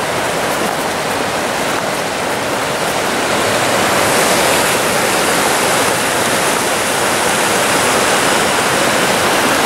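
Shallow, rocky river rushing and foaming over stones and ice: a steady, loud wash of running water that grows a little louder and brighter about four seconds in.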